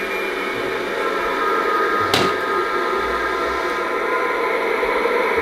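Darling Dolly animatronic's electric motor whirring steadily as the life-size doll moves its arms, with one sharp click about two seconds in.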